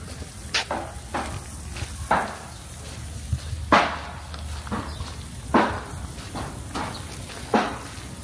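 Footsteps crunching, about one step a second, some sharper than others, over a low steady rumble.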